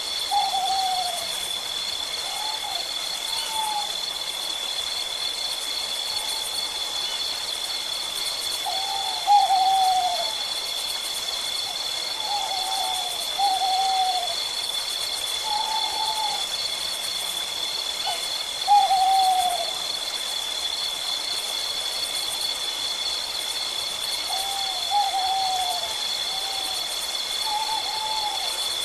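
Owl calling in short, downward-slurring notes, sometimes singly and sometimes in quick runs of two or three, at irregular intervals. A continuous high-pitched trill runs underneath.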